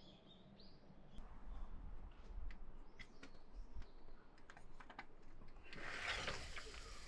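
Glass-panelled shop door being opened: scattered light clicks and ticks, then a short burst of scraping, rattling noise about six seconds in as the door leaves part.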